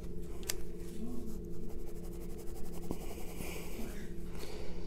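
Pencil shading on paper: light, repeated scratching strokes over a steady low hum.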